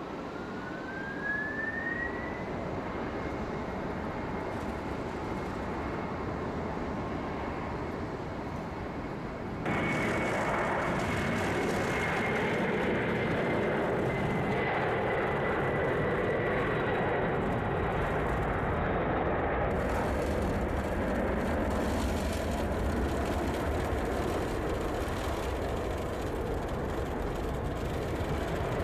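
Lockheed C-5M Super Galaxy's four General Electric F138 turbofan engines spooling up to takeoff power, with a rising whine over the first couple of seconds that then holds steady over the engines' roar. The sound jumps louder about ten seconds in and stays loud through the takeoff roll and climb-out.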